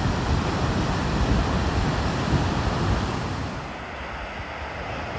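Wind buffeting the microphone over crashing surf in rough seas, then, about three and a half seconds in, a softer, steady wash of small breaking waves.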